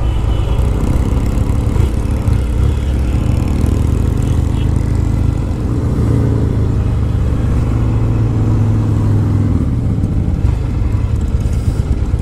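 1974 Norton Commando MK2A's parallel-twin engine running steadily and loudly.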